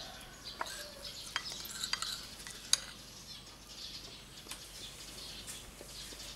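A spoon scraping and clinking against a porcelain bowl as it digs into hard-frozen homemade ice cream, with a sharp clink nearly three seconds in.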